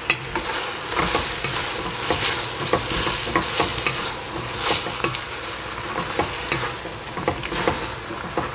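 Wooden spatula stirring vegetables and tofu in a stainless steel pot, with many short scrapes and knocks against the pot over a steady sizzle of frying.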